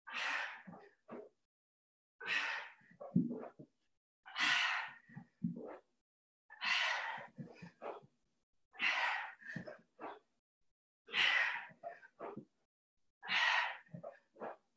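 A person breathing hard in a steady rhythm while doing sit-ups: a forceful exhale about every two seconds, seven in all, each followed by a few short, fainter breaths.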